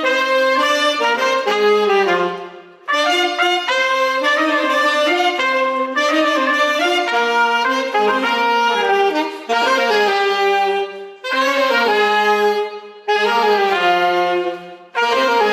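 A small wind ensemble, with saxophone and brass to the fore, playing Isthmus of Tehuantepec band music in several parts at once. It moves phrase by phrase, with brief breathing gaps between phrases.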